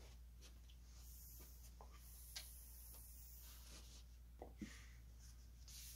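Near silence: a low steady hum of room tone with a few faint, light clicks and taps.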